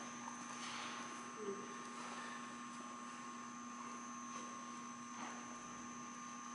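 Quiet room tone with a steady electrical hum, and a few faint soft footfalls on the padded floor as a person walks.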